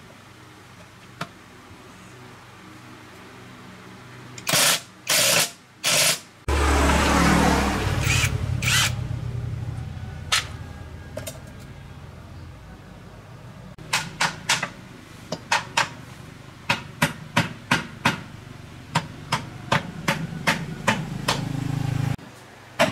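Workshop machinery: after a few short loud bursts, a motor-driven machine starts abruptly and runs with a steady low hum. Over its second half come sharp metal strikes about twice a second. The motor stops shortly before the end.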